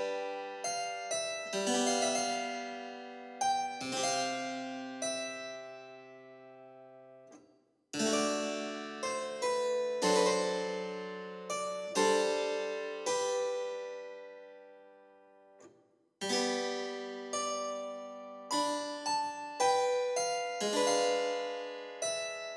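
Background music: a keyboard instrument plays slow phrases of chords and single notes, each note ringing out and fading, with two short breaks between phrases.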